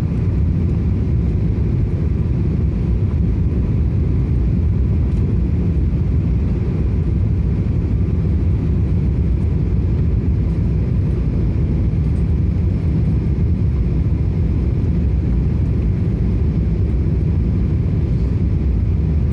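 Steady, loud cabin rumble of a Boeing 777 airliner in flight on its approach, engine and airflow noise heard from inside the cabin.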